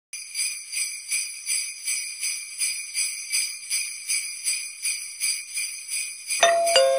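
Jingle bells shaken in a steady rhythm, about three shakes a second. Near the end two bell-like chime notes are struck in quick succession and ring on.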